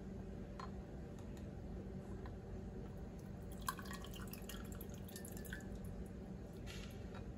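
Tea poured from a stainless saucepan through a mesh cone strainer into a glass cup: a light clink about halfway through, then liquid trickling and dripping through the mesh for a couple of seconds, faint, over a low steady hum.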